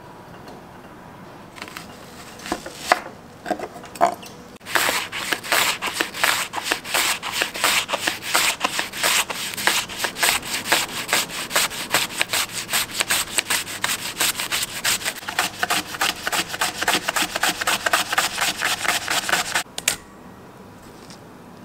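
Onion being sliced on a handheld mandoline slicer: a few scattered knocks, then a long run of quick, regular scraping strokes as the onion is pushed across the blade, stopping abruptly near the end.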